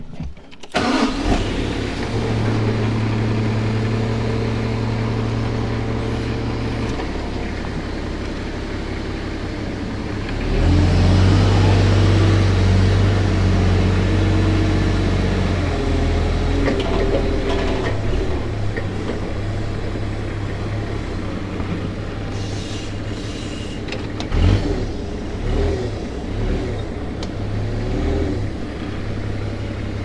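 An engine starts up about a second in and runs steadily, then gets louder about ten seconds in and keeps running.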